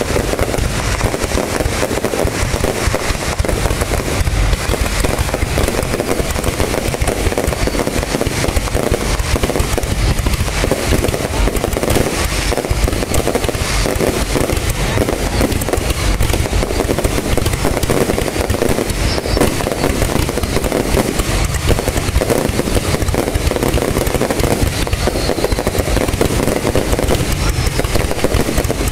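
Fireworks display: a continuous barrage of bursts and crackling with no break.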